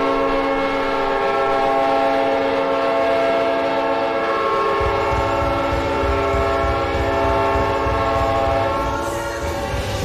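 Winnipeg Jets arena goal horn sounding one long, steady multi-note chord, like a train horn. About five seconds in, a low drum beat from the goal music joins, and the horn stops near the end.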